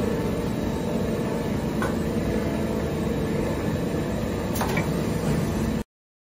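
Steady mechanical hum of a Toyoda FH450S horizontal machining center running idle, with two light clicks as its tool magazine rack is handled, about two seconds in and near the end. The sound cuts off suddenly near the end.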